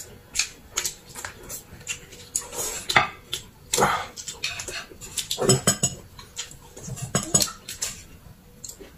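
Close-miked eating: wet chewing, smacking and slurping of noodles and braised pork, with repeated clinks of chopsticks on plates and bowls as a plate is lifted and set down.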